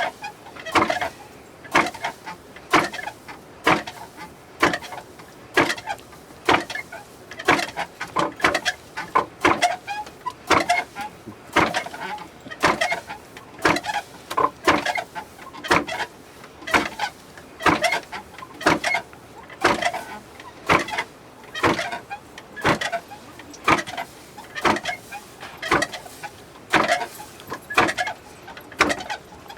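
Barley being milled by hand with a traditional mill: a long run of repeated grinding strokes, about one to two a second, at an even rhythm.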